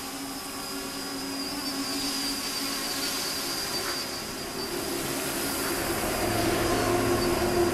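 Mini tricopter's three electric motors and propellers buzzing in flight, with a steady high whine that wavers slightly, growing louder toward the end.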